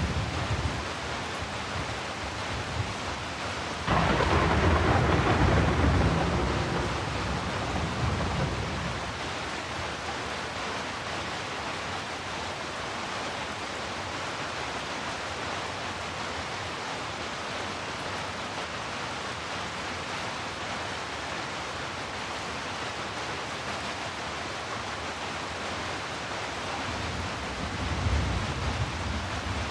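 Heavy rain falling steadily, with a thunderclap breaking in suddenly about four seconds in and rumbling away over several seconds, and a second, lower rumble of thunder near the end.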